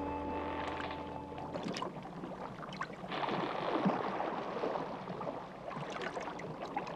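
Water sloshing and gurgling with scattered small clicks and splashes, as a flute music tail dies away in the first second or two.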